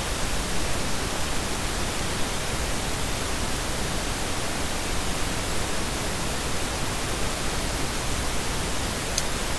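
Steady hiss of recording background noise, even and unchanging, with one faint tick near the end.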